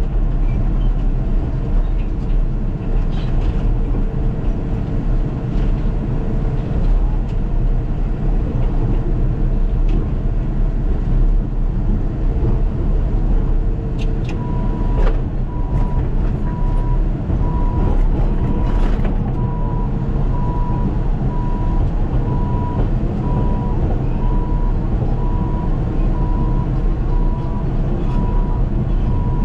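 Caterpillar D6K2 XL bulldozer's diesel engine running steadily at work. About halfway in, a steady string of high, evenly spaced beeps starts and carries on, typical of the dozer's reverse alarm.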